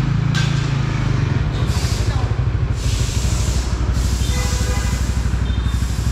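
Small motorcycle engine idling with a steady low throb. Bursts of hissing noise over it about three and five seconds in.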